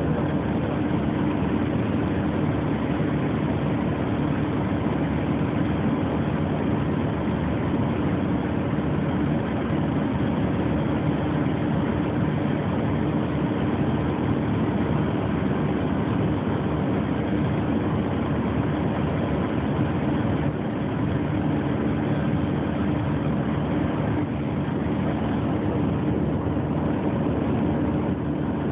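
Steady drone of a small propeller aircraft's engine in cruising flight, heard from on board, with a strong constant hum.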